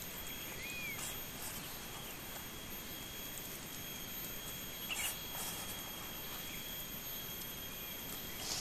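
Forest ambience: a steady hiss with a thin, steady high insect-like drone, a few short chirps and a few faint clicks.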